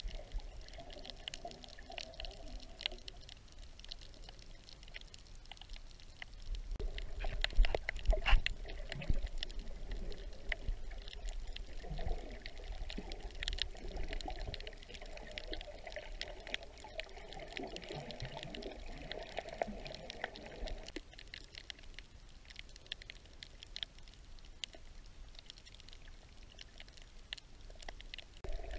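Underwater sound picked up by a camera in a waterproof housing while snorkeling: muffled water movement with scattered crackling clicks. It gets louder for a few seconds about seven seconds in.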